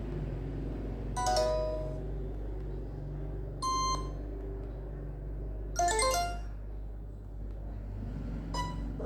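A polyphonic ringtone from the LG MX210 played through a Nokia 6300's loudspeaker: a slow electronic melody of held low notes, with a short bright chime-like note about every two seconds, four in all.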